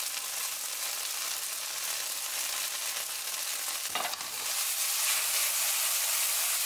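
Flour-coated chicken pieces and sliced spring onions sizzling in a hot frying pan. There is a short knock about four seconds in, after which the sizzle gets louder as the pan is tossed.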